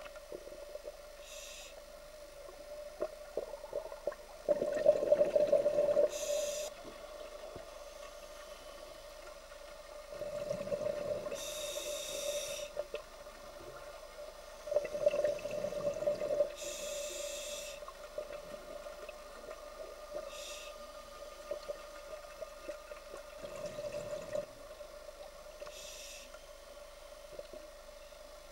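Scuba diver breathing underwater through a regulator: brief hissing inhalations alternate with four bubbling exhalations of a second or two each, about every five seconds, over a steady low hum.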